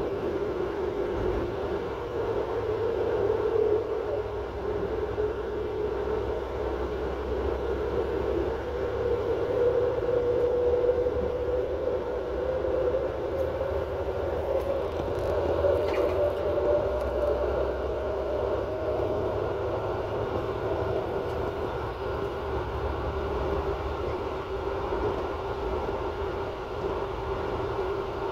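Regional diesel multiple unit running at speed, heard from its unoccupied rear driver's cab: a steady low rumble with a drone that rises slightly in pitch midway and then settles back, and a single faint click about two thirds of the way through.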